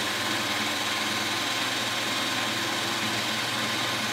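Cordless drill spinning a Honda UT3 quarter-midget engine over at a steady speed of about 1200 rpm, a continuous even motor whir. The engine is being turned so its ignition timing can be read with a timing light.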